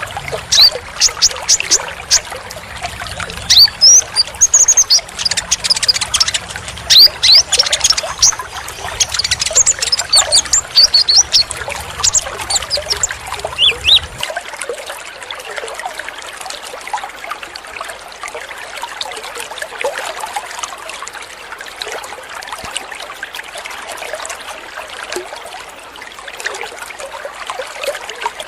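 Konin (kolibri ninja) sunbird song, rapid high-pitched chirps and twitters over a steady trickle of running water; the song stops about halfway and only the water goes on.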